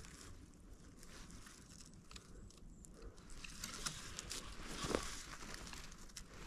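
Quiet footsteps through moss and blueberry undergrowth, with scattered small crackles and rustles.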